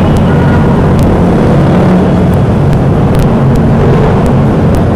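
Several motorcycles riding in a group through a road tunnel: engines running steadily at cruising speed over a loud, even rush of wind and road noise.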